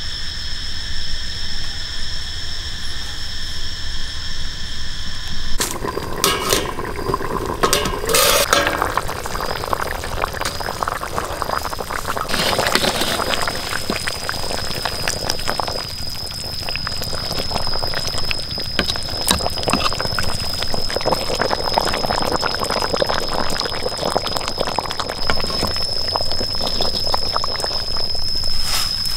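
A pot of pork ribs braising at a boil, the liquid bubbling steadily, with a metal ladle clinking against the pot a few times as the bubbling begins. Before that, and again through the second half, a steady high insect buzz sounds over it.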